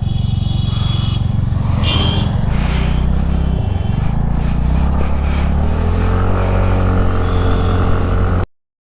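TVS Ntorq 125 scooter's single-cylinder engine running while riding; the engine note rises about six seconds in, and the sound cuts off suddenly near the end.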